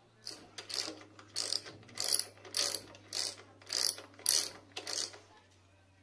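Ratchet wrench clicking through about nine short strokes, roughly two a second, working a bolt.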